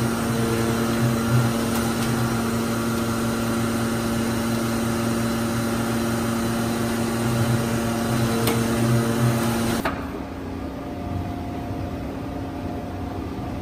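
1997 Mazak FF-510 horizontal machining center running with a steady hum and whine while its axis servos drive the spindle head through its travels, with low pulsing surges as the axes start and stop. The hum cuts off suddenly about ten seconds in, leaving a quieter low background.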